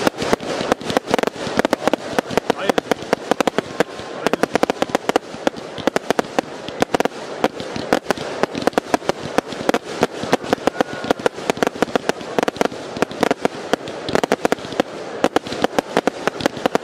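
Fireworks batteries firing a dense barrage: a rapid, unbroken string of launch thumps and aerial bursts with crackle, several bangs a second.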